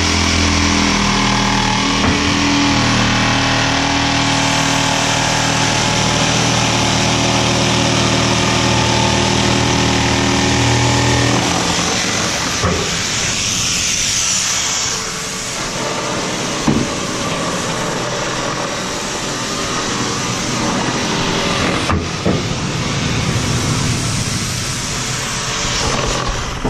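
An engine running steadily, which cuts out about eleven seconds in. A steady hiss carries on after it, with a few sharp knocks.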